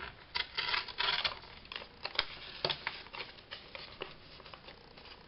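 Paper rustling and crackling as it is handled and torn by hand, with scattered light clicks and taps. The scratchiest stretch comes about a second in.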